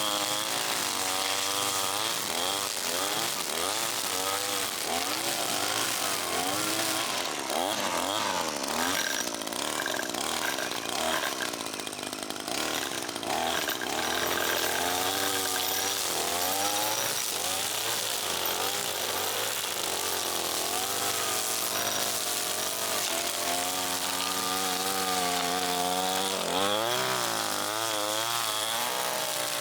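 Small gas engine of a handheld power tool running, revving up and down over and over as it works.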